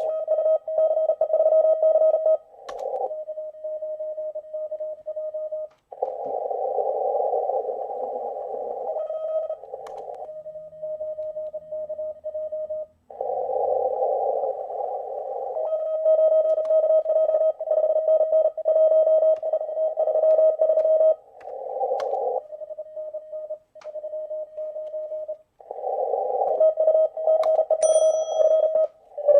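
Morse code (CW) from an amateur radio transceiver heard through a laptop speaker. Stretches of a clean keyed tone near 600 Hz alternate every few seconds with stretches of hissy receiver band noise, as a contest contact is worked.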